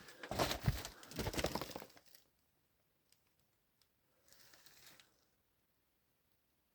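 Crinkling, crackling rustles for about two seconds, then a shorter, fainter rustle a few seconds later.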